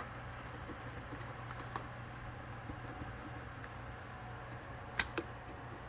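A low steady hum with scattered light clicks and taps, the loudest pair about five seconds in.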